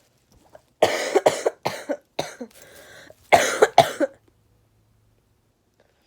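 A woman coughing in a fit, about five coughs and then, after a short pause, about three more.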